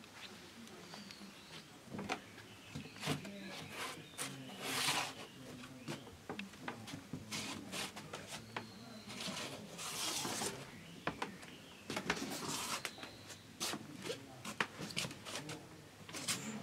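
Irregular knocks and clicks of footsteps on wooden decking and handling of a handheld camera, with two longer rustles, one about five seconds in and one about ten seconds in. A bird chirps faintly now and then.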